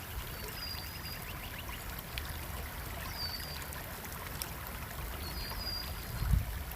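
Steady rush of flowing stream water, with three short, high bird chirps over it. A low rumbling grows near the end.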